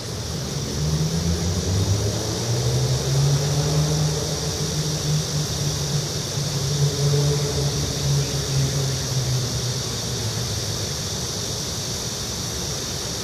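Low rumble of passing motor traffic, swelling about a second in, loudest in the middle and easing off again near the end, over a steady high-pitched hiss.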